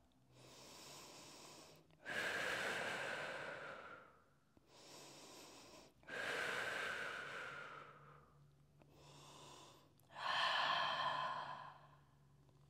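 A woman breathing slowly and audibly, three full breaths. Each is a soft breath in followed by a louder, longer breath out that fades away.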